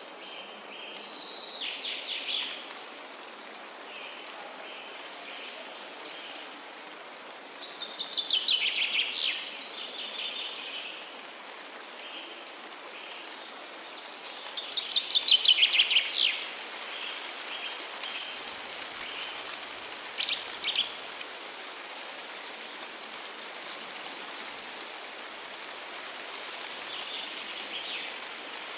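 A bird calling in bursts of fast rattling notes with shorter single notes between them; the loudest bursts come about a third and halfway in. A steady high hiss runs underneath.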